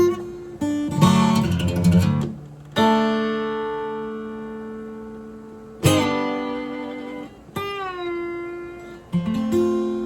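Acoustic guitar music: chords strummed and left to ring out, with a note bending downward about halfway through.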